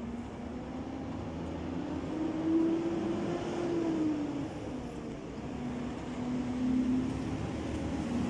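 Kick scooter's wheels rolling on a concrete pavement: a low rumbling hum that drifts up and down in pitch and grows gradually louder.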